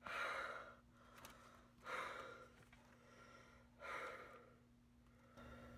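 A man breathing out in three slow sighs about two seconds apart, over a faint steady hum.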